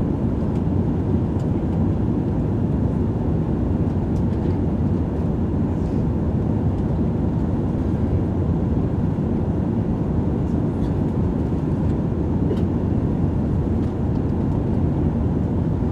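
Airbus A380 cabin noise: a steady low rumble of the jet engines and airflow heard from inside the cabin, with a few faint small clicks.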